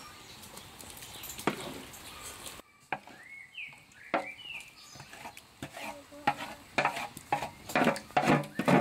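A wooden spatula scraping cooked meat and onions off a large metal tray into a frying pan, in repeated strokes that grow louder toward the end. A bird chirps a few times in the middle.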